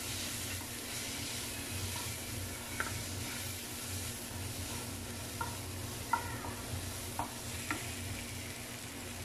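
Onion, tomato and green chilli masala sizzling in oil in a nonstick pan as it is stirred with a wooden spatula, with a few short taps and scrapes of the spatula against the pan.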